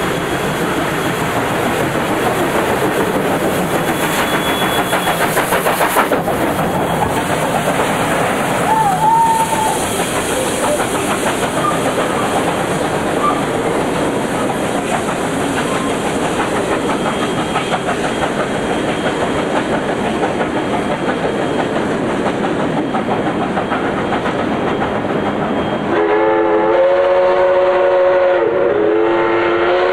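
NSWGR D59 class steam locomotive 5917 running with its train, a loud steady rush of noise. About 26 seconds in, its steam whistle sounds a long blast of several notes at once.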